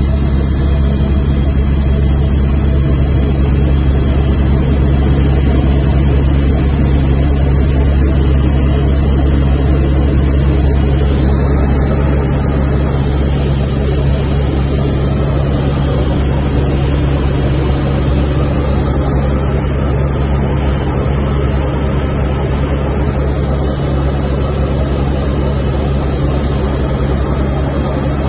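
Helicopter in flight heard from inside the cabin: a loud, steady drone of rotor and engine with a deep, unchanging hum.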